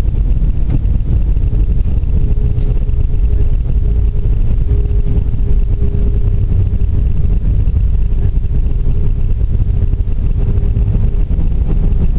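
Cabin noise of an Airbus A320 rolling along the runway after landing: a loud low rumble with a steady engine hum.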